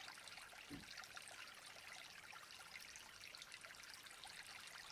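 Faint, steady rush of running water from a waterfall ambience.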